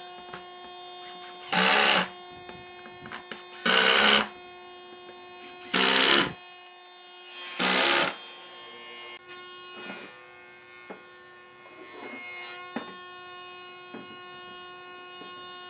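An electric power tool's motor running steadily at a high pitch, with four loud, short bursts of cutting into wood about two seconds apart in the first half.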